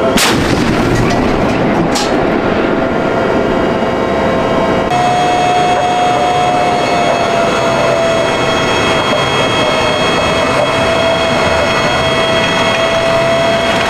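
An M1A2 SEP v2 Abrams tank's 120 mm main gun fires once, with a second, fainter report about two seconds later. The tank's gas-turbine engine runs steadily with a high, even whine.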